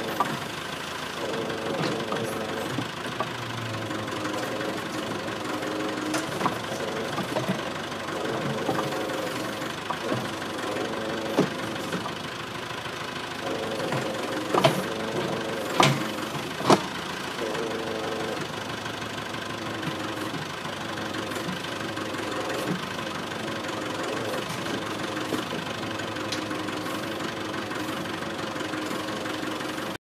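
Caterpillar backhoe's diesel engine running steadily, its note dipping and rising again and again as the hoe arm works. About halfway through, three sharp cracks or knocks stand out above the engine.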